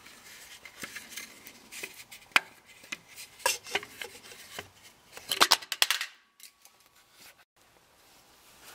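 Light handling noise: scattered clicks, taps and scrapes, with a quick cluster of sharp clicks about five and a half seconds in, then a short near-silent stretch.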